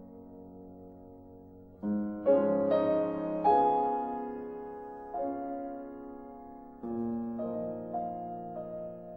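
Slow, soft piano music. A held chord fades away over the first two seconds, then single notes and chords are struck at a gentle, unhurried pace, each dying away.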